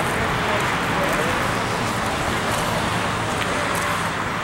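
A steady vehicle-like rumble and hiss with no clear changes, with faint voices in the background.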